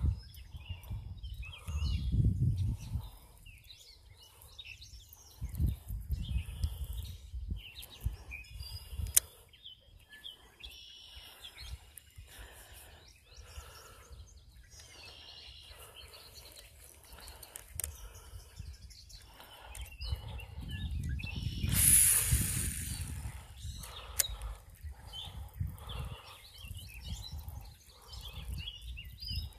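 Small birds chirping on and off, with gusts of wind rumbling on the microphone. A loud hissing rush comes about two-thirds of the way in.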